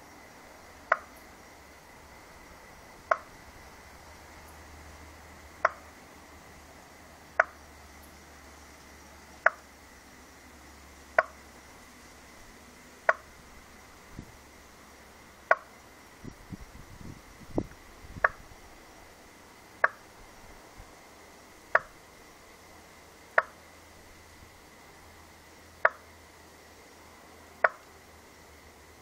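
A short, hollow knock like wood tapped on wood, or a drop hitting an upturned plastic bucket, repeating fourteen times at uneven gaps of about two seconds. It is an unidentified night sound. A few soft low thumps and rustles come about halfway through.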